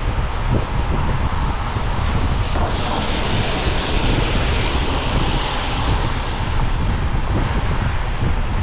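Steady road noise of a car driving on wet pavement, with a heavy low rumble. A hiss of tyres on the wet road swells from about three seconds in and fades by about seven.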